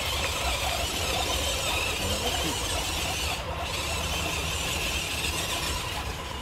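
Radio-controlled crawler's electric motor and gearbox giving a steady high-pitched whine as it drives.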